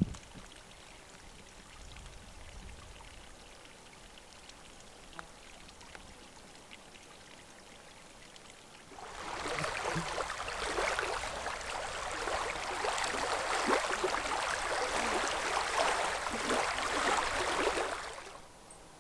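Lake water lapping and splashing against rocks and gravel at the water's edge, a busy watery hiss full of small splashes that starts abruptly about halfway through and stops shortly before the end. Before that there is only faint outdoor background.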